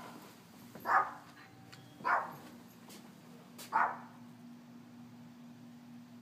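A dog barking three single times, at about one, two and four seconds in: alert barks at someone arriving at the front door.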